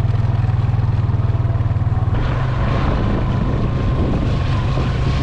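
Vehicle engine running steadily as it drives, with a fast even pulsing hum. About two seconds in the sound turns rougher and noisier, and a faint steady whine joins it.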